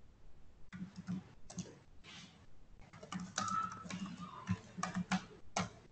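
Typing on a computer keyboard: irregular key clicks, with a short pause about two seconds in and then a denser run of keystrokes.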